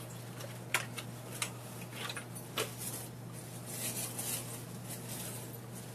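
Small shiny blind-bag packet being torn open and handled, giving a few short sharp crackles and a brief rustling crinkle about four seconds in.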